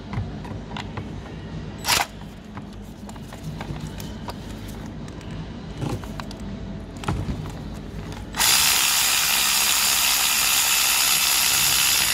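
Clicks and knocks of a socket and extension being fitted onto a spark plug, then about eight seconds in a Mac Tools power ratchet runs steadily and loudly for about four seconds, unscrewing the spark plug, and stops abruptly.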